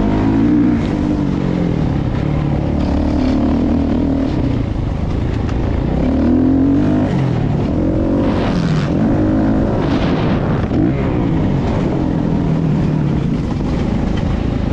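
Motocross bike engine heard from on board, revving up and falling back again and again as the rider accelerates and shuts off around the dirt track.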